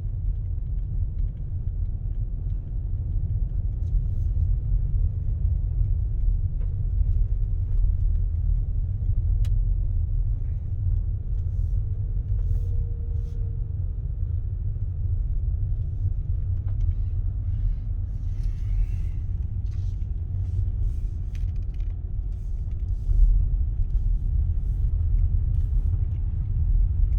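A car driving in snow, heard from inside the cabin: a steady low rumble of engine and road noise, with faint scattered clicks and crackles in the second half.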